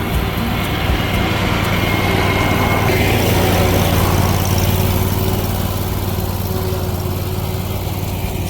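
Lawn mower engine running steadily under load while mowing.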